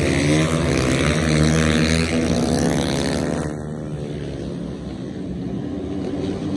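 Flat track racing motorcycles passing close at speed, engines revving with the pitch rising and falling. About three and a half seconds in the engine sound drops away and continues more faintly as the pack heads into the far turn.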